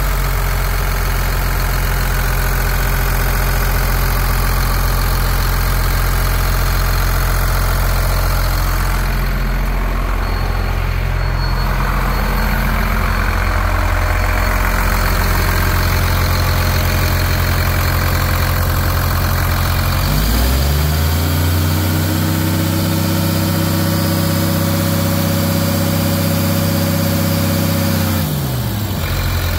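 2004 Cummins ISC 8.3-litre inline-six diesel idling steadily. About two-thirds of the way through it is raised to a higher, steady speed, held for several seconds, then drops back to idle near the end.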